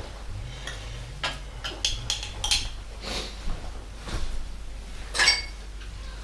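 A spoon clinking against a bowl and dishes during a meal: several light clinks spread out, the loudest and most ringing one about five seconds in.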